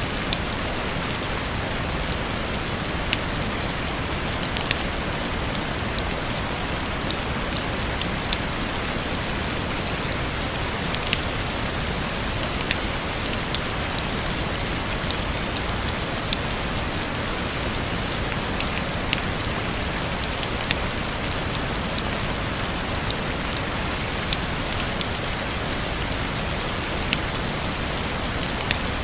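Steady rain falling: an even hiss of rainfall with louder single drop taps standing out every second or two.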